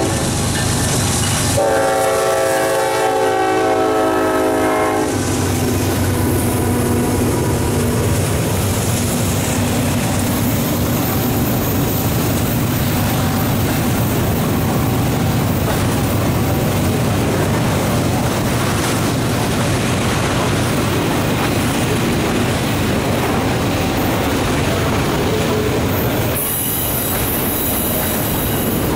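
Diesel locomotive air horn, from the lead unit, a Norfolk Southern ES44AC, blowing one long multi-note blast from about a second and a half in for about three and a half seconds as it passes. After that, the steady rumble and clatter of a long train of autorack freight cars rolling past on the rails.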